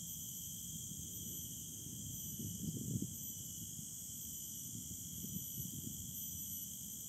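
Steady high-pitched insect chorus, several even tones held without a break. A brief low rumble rises under it about three seconds in, with fainter ones near five and six seconds.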